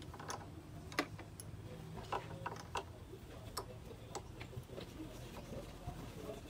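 An open-end wrench clicking on the lock nuts of a Honda Click's combi-brake cable adjuster as they are tightened. There is a series of light, irregular clicks, the sharpest about a second in.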